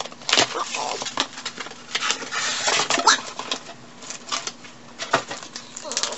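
Rustling and crinkling of paper and plastic shipping packaging as a book is pulled out and unwrapped, in irregular bursts with small clicks and knocks from handling.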